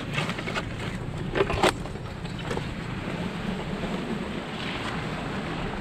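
3rd-generation Toyota Tacoma driving along a dirt trail: steady engine and tyre noise with wind buffeting the microphone, and two sharp knocks about a second and a half in.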